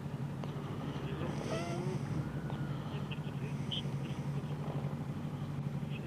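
Motorcycle engine idling steadily, a constant low hum, with faint distant voices about a second and a half in.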